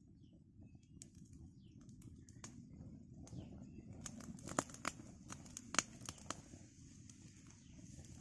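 Open fire crackling as corn cobs roast over it: scattered sharp pops and snaps over a low steady rustle, busiest around the middle.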